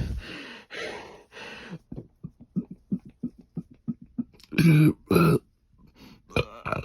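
A man's burp ends right at the start, followed by a run of short, quick gulps, about six a second, as he swallows air. Then come two loud, short, throaty bursts about half a second apart.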